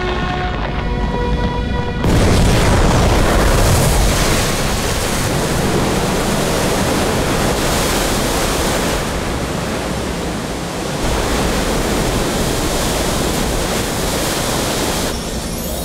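A torrent of water rushing and surging, bursting in suddenly about two seconds in over a short stretch of music, loudest with a deep rumble as it bursts in, then running on steadily until music takes over near the end.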